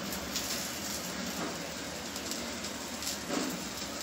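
Steady hiss of a whole chicken roasting over an open gas-stove flame, its dripping fat sizzling in the fire.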